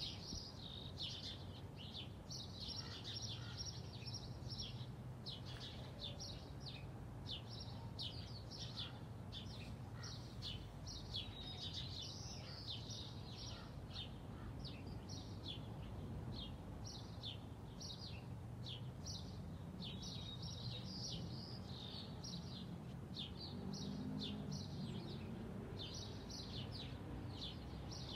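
Birds chirping continuously in quick, repeated high chirps, over a low steady hum of distant traffic.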